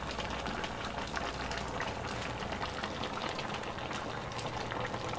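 Pot of pork pochero boiling on the stove: steady bubbling with many small pops over a low, steady hum.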